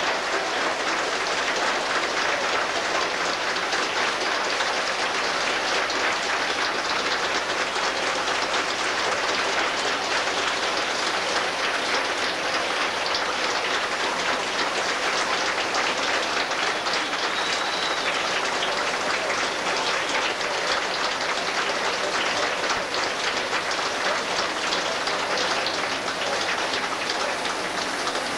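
Large indoor crowd applauding, a dense, steady clapping of many hands that goes on without a break.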